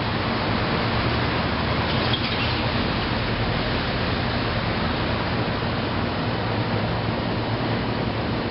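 Heavy thunderstorm rain falling, a steady, even hiss with no thunderclap.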